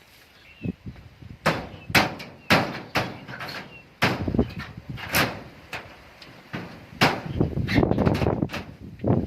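A series of irregular knocks and bangs, about a dozen sharp impacts at uneven spacing, bunching together near the end.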